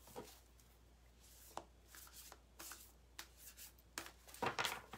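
A deck of animal-spirit oracle cards being shuffled by hand: scattered soft rustles and light card taps, with a louder flurry near the end.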